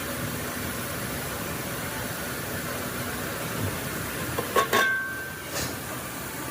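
Steady hum of factory machinery. About four and a half seconds in come two sharp knocks with a brief ring, then a lighter knock about a second later.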